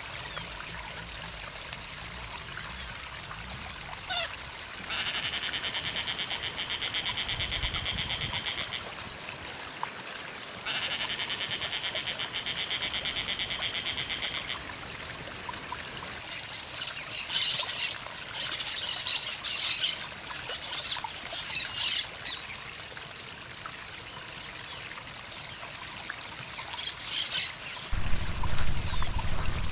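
Wild birds calling: two rapid trills of about four seconds each, then a series of short, harsh calls, over a steady high-pitched background hum.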